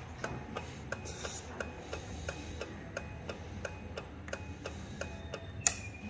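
Turn-signal flasher relay on a BMW R100RS clicking steadily with the indicator switched on, about three clicks a second, with one louder click near the end.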